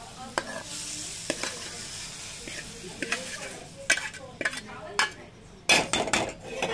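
Steel ladle and flat spatula scraping hot sautéed vegetables out of a steel kadai into a steel bowl, with a light sizzle from the hot food at first. Sharp metal clinks and scrapes follow, loudest in a quick cluster near the end.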